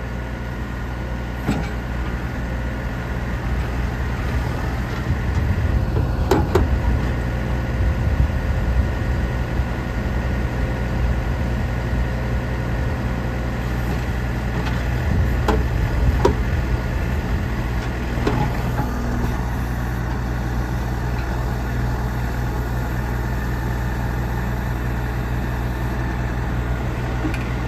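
JCB 214 backhoe loader's four-cylinder turbo diesel running steadily while the backhoe is worked, with the engine coming under more load a few seconds in and again about halfway through. A few sharp clunks are heard along the way.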